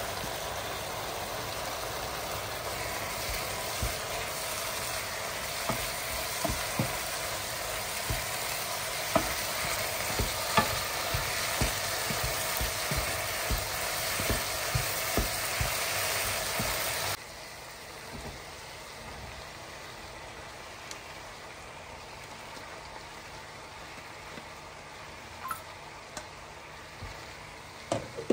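Minced meat sizzling in a frying pan while a wooden spatula stirs it, with short scrapes and taps of the spatula against the pan. The sizzle drops suddenly to a quieter level a little past halfway, and a few louder spatula taps come near the end.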